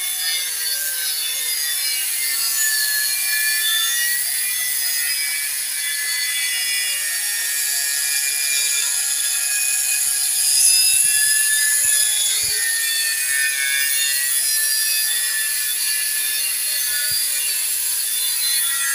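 Electric angle grinder running with its disc pressed against metal: a steady, high-pitched grinding that swells a little about ten seconds in.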